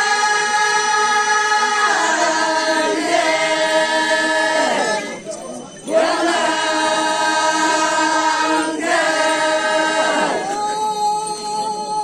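A group of Changsa women singing a traditional cultural song together, unaccompanied, in long held notes. The phrases break for breath about five seconds in and again briefly near the end.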